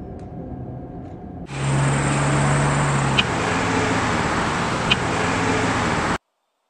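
A Volkswagen Eos car driving past, a steady rush of tyre and engine noise with a low engine hum that drops slightly in pitch as it goes by. It starts suddenly about a second and a half in, with two short ticks partway through, and cuts off abruptly near the end.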